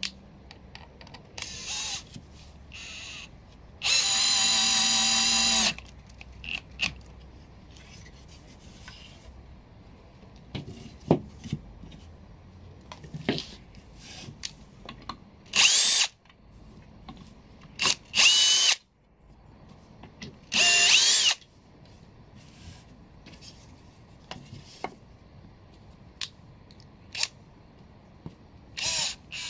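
Cordless drill-driver driving wood screws into plywood and timber in a series of short runs, the longest lasting about two seconds some four seconds in. Several later runs rise in pitch as the motor speeds up. Between the runs there are small clicks and knocks of screws and wood being handled.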